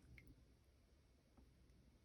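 Near silence, with two faint small clicks.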